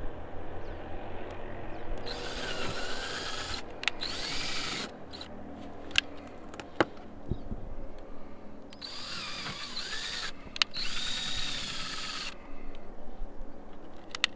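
Power drill boring holes through an RV roof, in two bursts of a few seconds each, the motor's whine rising and falling in pitch; a couple of sharp clicks between the bursts.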